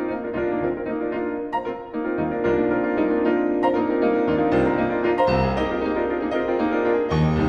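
Classical piano music played as a soundtrack, a flowing run of struck notes that grows a little louder about two seconds in, with deeper bass notes joining a little past five seconds.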